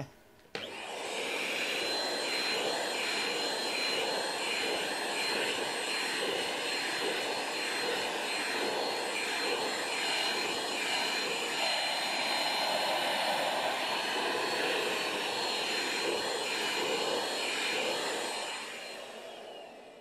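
Vacuum cleaner switched on about half a second in and running steadily with a thin high whine, its nozzle drawn through a cat's coat to suck up loose fur. It is switched off near the end and winds down.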